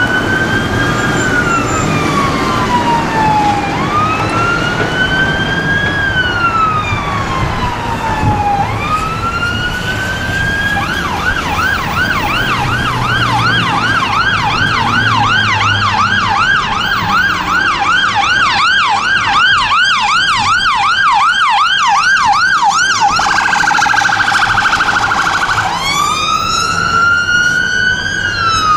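Scania fire engine's electronic siren on an emergency response. It starts with a slow wail rising and falling, switches about eleven seconds in to a fast yelp of about three to four sweeps a second, then to a very rapid warble, and goes back to the slow wail near the end, over low traffic rumble.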